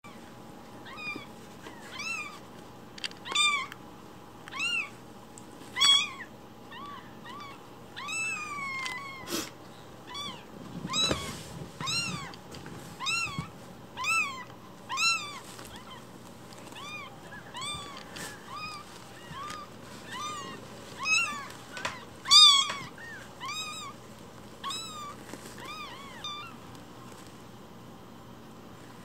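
Week-old newborn kittens mewing over and over: short, high, rising-and-falling cries, one or two a second, varying in loudness.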